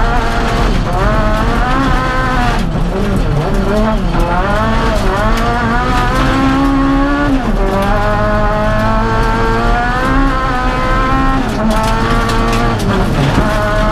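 Honda Civic Type-R rally car's four-cylinder engine, heard from inside the cabin, revving hard and climbing in pitch through each gear. The pitch drops sharply at each upshift, several times over, over a steady hiss of road noise from the gravel under the car.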